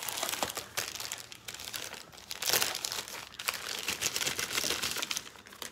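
Snack packaging crinkling and rustling as it is handled, in irregular crackles that come and go.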